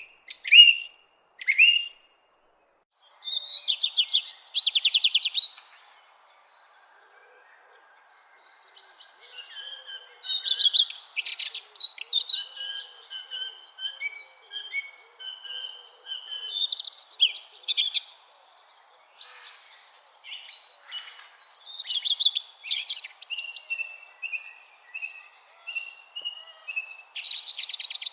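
Songbirds singing: a few short chirps, then a rapid trill about three seconds in. After a brief lull, several birds sing over one another in chirps, trills and whistled calls, ending with a run of short whistled notes.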